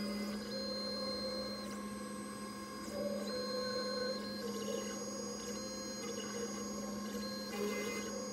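Pocket NC V2 desktop five-axis mill milling a blue plastic part: a steady spindle hum with high thin whines from the axis motors that switch on and off every second or so as the table and head move.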